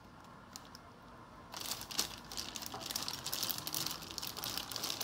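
Clear plastic zip-lock bags crinkling and rustling as hands rummage through them, starting about a second and a half in and going on without a break.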